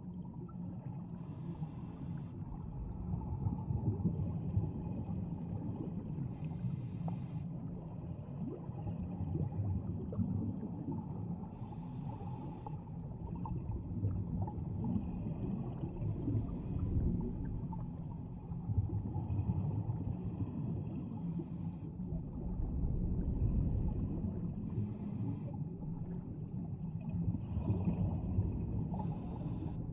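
Underwater scuba breathing through a regulator: a hiss of inhalation about every four to five seconds, with the low rumble of exhaled bubbles in between.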